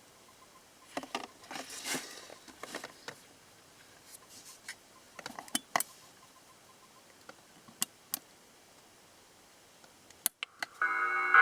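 Scattered light clicks and soft rustling, then near the end a church-bell chime played in a model diorama starts ringing, steady and many-pitched, louder than anything before it.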